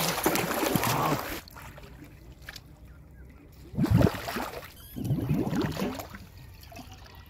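River water splashing hard close by: a loud rush of splashing through the first second or so, then a sharp splash about four seconds in and more splashing soon after.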